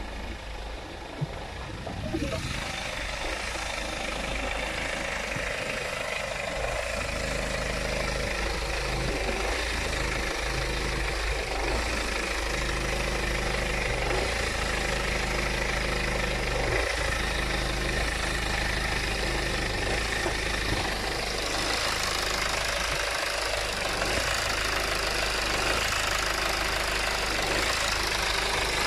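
BMW 520d's four-cylinder diesel engine idling roughly, as heard close up in the engine bay. There is a single knock about a second in, and from about two seconds the engine sounds much louder. The rough idle is the symptom the owner traced to a faulty fuel quantity control valve.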